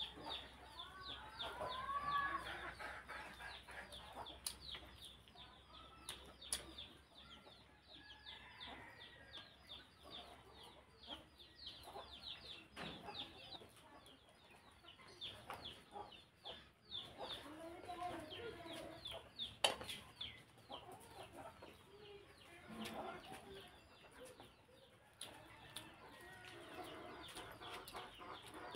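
Rapid high-pitched bird chirping, many quick falling notes a second, going on without a break. Under it come soft sounds of a hand mixing rice with curry and of chewing, with occasional clicks and smacks.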